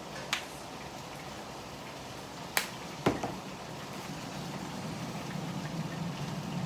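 Three sharp clicks from handling kitchenware: one about a third of a second in, then two close together around two and a half to three seconds, the last the loudest. They sit over a steady low hum and hiss.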